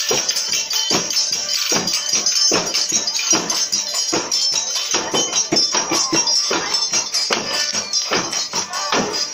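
Folia de Reis procession band playing on the move: drums beaten in a steady marching beat, about two to three strokes a second, with tambourine jingles throughout.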